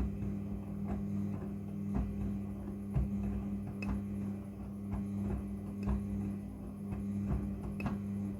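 Front-loading washing machine running during a wash, a steady motor hum with irregular clicks and knocks as the drum turns.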